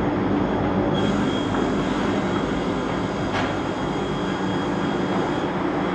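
Single-arbor multi-blade circular saw (multi-rip saw) running steadily while ripping thick plywood into strips. From about a second in, a high whine and hiss join the steady machine hum and fade out shortly before the end.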